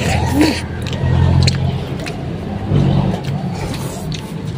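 A motor vehicle engine running steadily, a low hum that swells twice, with scattered small clicks over it.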